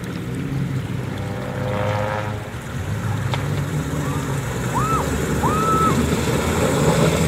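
Engine of a 4x4 off-road vehicle running steadily as it wades through a shallow river, a low drone that grows louder from about halfway through. Two short whistle-like tones come near the end.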